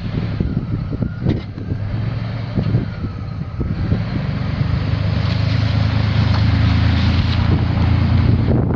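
A 1994 Chevrolet Cheyenne 1500's 4.3L V6 gas engine running just after being started, idling at first, then running louder from about four seconds in before dropping back near the end.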